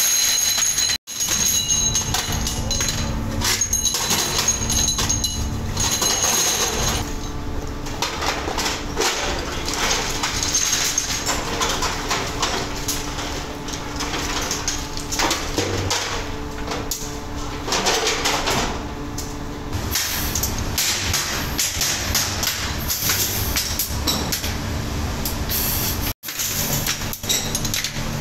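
A continuous metallic clatter as a load of metal motorcycle brake shoes is poured from a metal tub onto a metal table, the shoes jangling and knocking against each other and the tabletop. Near the end the shoes clink as they are picked over by hand.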